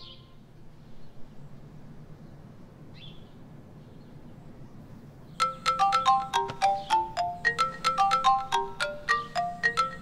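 Low steady room hum, then about five seconds in a mobile phone starts ringing. The ringtone is a fast, repeating melody of short ringing notes.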